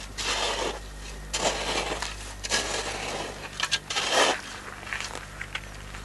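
Dry, loose soil being dug and scraped away by hand in short, uneven scraping strokes.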